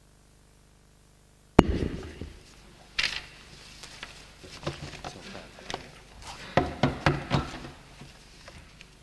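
A sudden loud thump about a second and a half in, then scattered knocks and the footsteps of hard-soled shoes on a hard floor, with a quicker run of steps near the end.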